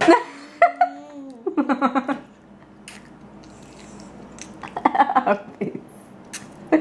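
A young child's voice making wordless sounds: a long, wavering cry that slides down in pitch over the first two seconds, then a shorter burst about five seconds in.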